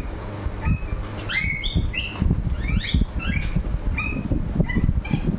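A young parakeet chirping: a rapid string of short, high, squeaky calls, several a second, starting about a second in.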